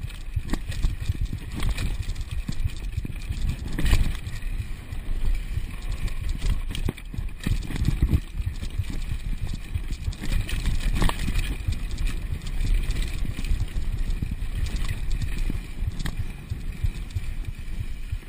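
Downhill mountain bike clattering over a rocky dirt trail at speed: tyres crunching on gravel and loose stones, chain and frame knocking over the bumps, under a steady low rumble.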